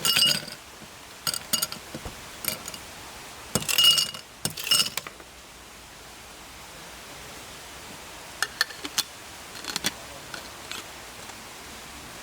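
Hard metal-and-glass objects clinking and clattering as they are handled, in short bursts: at the start, loudest around four seconds in, and again around nine to ten seconds. A steady hiss runs underneath.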